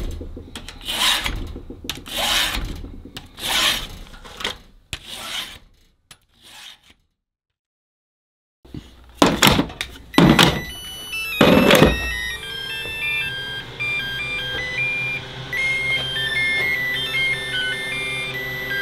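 Chainsaw file rasping across the teeth of a battery chainsaw's chain, about one stroke a second for the first several seconds. After a short silence come a few loud clunks, then electronic music with a stepping melody over a steady bass.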